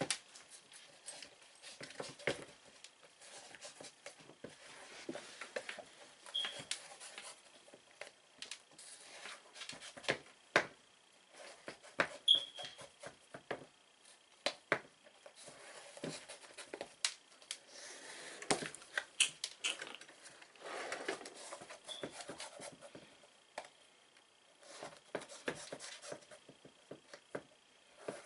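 Laces being pulled out of an Air Jordan 7 sneaker: irregular rustling of the laces through the eyelets, with scattered ticks, small knocks and a few brief squeaks as the shoe is handled.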